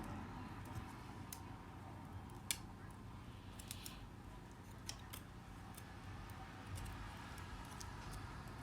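A few small, sharp clicks, scattered and faint, of metal tweezers and tiny parts being handled inside an opened iPhone 7 while components are put back in place. The loudest click comes about two and a half seconds in.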